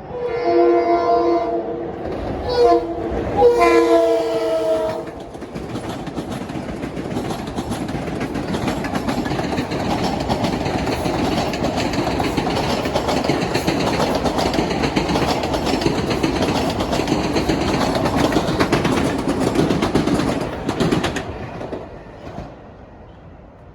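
Long Island Rail Road train sounding its horn (a long blast, a short one, then another long one) and then rolling past with steady wheel and rail noise for about fifteen seconds, dying away near the end.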